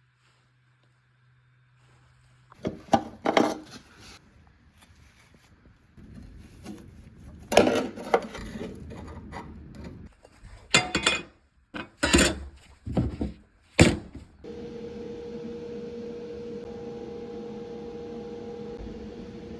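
Tools knocking and clanking against car body metal in a few sharp clusters. About two-thirds of the way through it gives way to a steady hum with a held tone.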